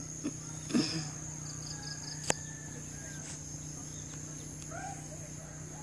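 A steady, high-pitched insect drone over a low steady hum. A short low sound comes about a second in, a quick run of about five high chirps follows just before two seconds, and a sharp click comes a little after two seconds.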